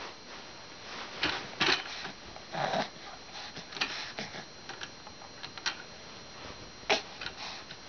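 Irregular soft taps, clicks and rustles, with a short breathy sound a little under three seconds in.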